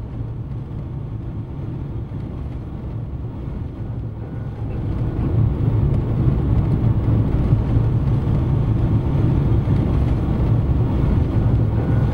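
Steady low rumbling noise with no clear tone, growing louder about five seconds in.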